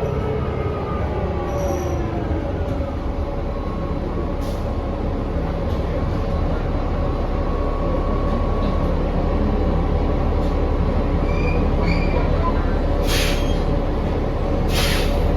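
Inside a 2019 New Flyer XD40 diesel transit bus under way: a steady low drivetrain rumble with whining tones that glide down and then back up as the bus changes speed. This is the unusual squealing whine the rider finds strange. Two brief harsh rattles come near the end.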